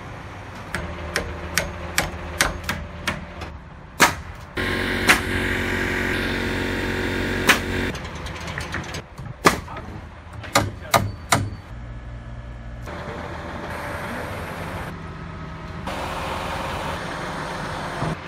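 Wood-frame construction work: a quick run of sharp strikes, then a steady motor running for about three seconds, a few more strikes, and a steady engine hum through the last several seconds.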